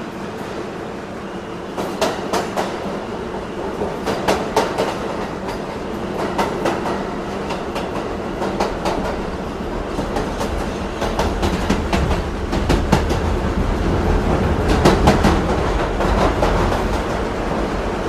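New York City subway train in motion: a steady rumble with clusters of wheel clicks and clacks over the rail joints every second or two, growing louder through the second half.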